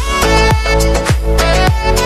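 Background music with a steady beat, just under two beats a second, under sustained melody notes.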